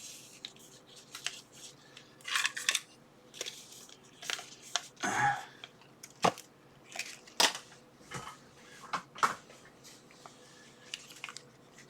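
Scissors cutting out labels: a scattered series of short, sharp snips and clicks.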